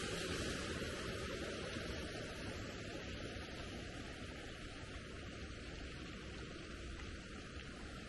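Steady outdoor background noise: an even hiss with a low rumble underneath, no distinct events, easing slightly in level.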